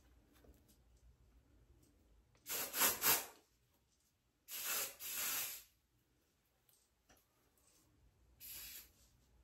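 Aerosol lace tint spray hissing in short bursts onto a wig's lace: one about two and a half seconds in, a longer one around five seconds, and a shorter one near the end.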